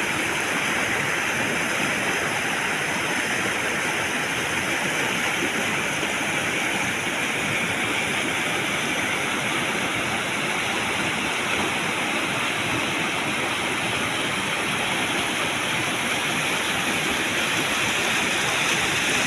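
River water rushing with a steady, even noise.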